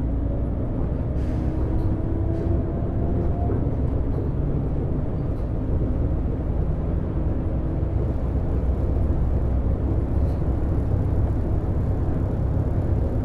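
Volvo B12BLE city bus on the move, heard from the driver's seat: its DH12E diesel engine and road rumble run steadily. A whine rises slowly in pitch over the first few seconds.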